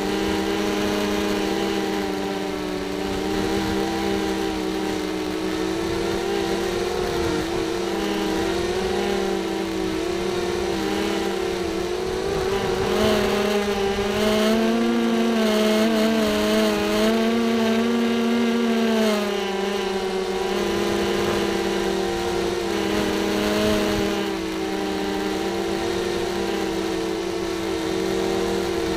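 Racing quadcopter's brushless motors and propellers whining, heard from the drone's onboard camera. The pitch wavers up and down with the throttle, and it runs louder for several seconds midway.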